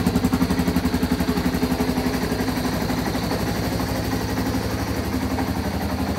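Yamaha Serow 225's air-cooled single-cylinder four-stroke engine idling with a steady, even pulse after a start-up check, running smoothly.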